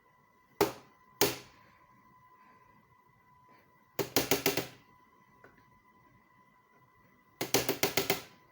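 Sharp taps: two single knocks close together, then two quick runs of about six rapid taps each, over a faint steady high tone.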